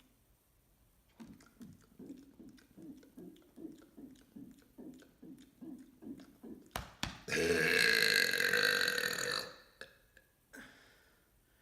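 A man's deliberate mega burp: a run of short low sounds at about three a second, then two sharp clicks, then one long, loud burp lasting about two seconds.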